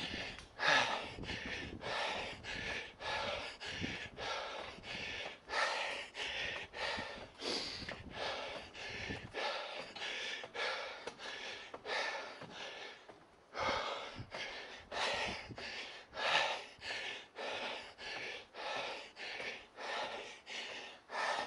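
A man breathing hard from climbing a steep stairway: quick, heavy, rhythmic breaths, about one and a half a second, with a brief pause about thirteen seconds in.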